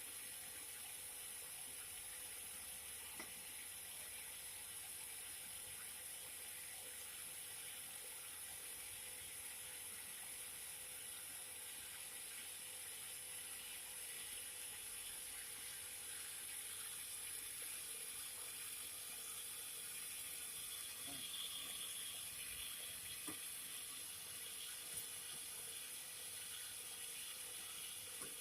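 Cotton candy machines running: a steady whirring hiss, with a few faint ticks.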